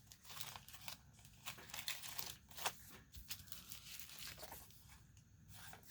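Faint, irregular crinkling and rustling of packaging handled by hand as gifts are unwrapped, with short tearing sounds.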